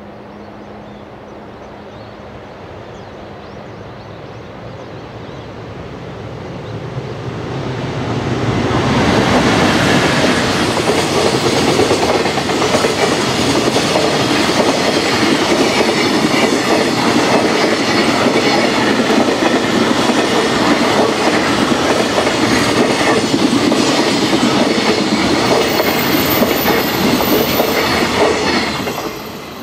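JR Freight Class EF510 electric locomotive hauling a long container freight train, approaching and growing louder over the first eight seconds. It then passes close by with a loud, steady rumble and the clickety-clack of the wagons' wheels over the rails, fading as the last wagons go by near the end.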